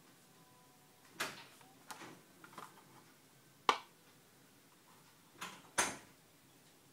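Carded Hot Wheels diecast cars in plastic blister packs being handled and set down on a wooden table. There are half a dozen light clacks and taps with some rustling, two of the sharpest near the middle and near the end.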